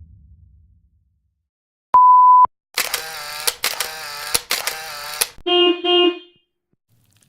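Censor bleep: a steady 1 kHz tone lasting about half a second, then a string of further short sound effects, a wavering buzzy tone broken by brief gaps and two short pitched beeps.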